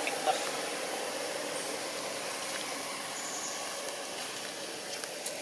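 Steady outdoor background noise, an even hiss-like hum, with one sharp tick about a third of a second in and a faint brief high-pitched chirp around three seconds in.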